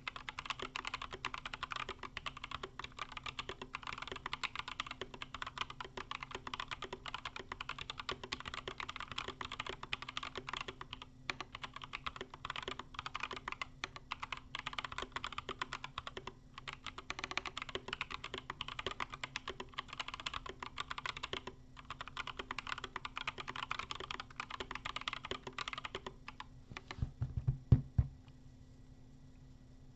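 Fast continuous typing on a mechanical keyboard with Gazzew Boba U4T tactile switches (62g) and YMDK Matcha keycaps, with a few brief pauses. The typing stops about four seconds before the end, followed by a few heavy thumps, the loudest sounds here.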